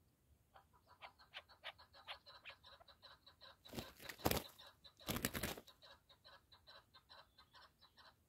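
Chukar partridge calling in a fast run of short clucking notes, about three to four a second. Twice, a little under four and a little after five seconds in, a chukar's wings flap loudly among the wire snares.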